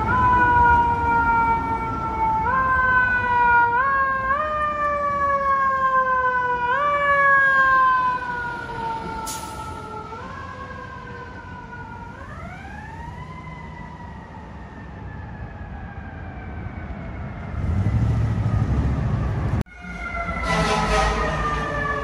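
FDNY fire engine siren wailing: the tone slowly falls in pitch and is pushed sharply back up again and again, over the rumble of a heavy truck engine. Near the end the sound cuts off abruptly and another siren takes over, falling slowly in pitch.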